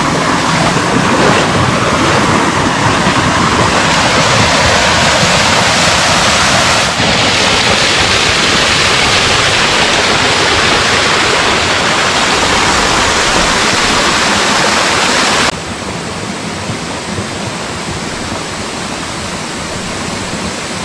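Mountain stream rushing over rocks: a loud, steady rush of water that drops suddenly to a quieter rush about three-quarters of the way through.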